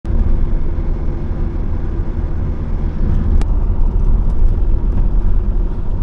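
Car driving at road speed, heard from inside the cabin: a steady low rumble of engine and tyres, with a single sharp click about halfway through.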